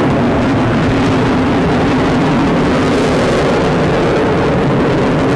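Sukhoi fighter jet's engines heard from the ground as it flies overhead: a loud, steady jet noise.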